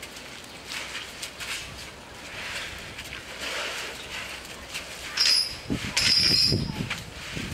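Asian elephants shuffling close by, then two loud, short, high-pitched squeals about five and six seconds in, with low thuds after them.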